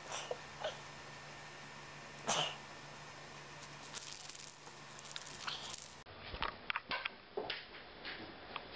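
A cat giving short, bark-like calls: three brief ones, the loudest about two seconds in. After a cut, a string of short knocks and clicks.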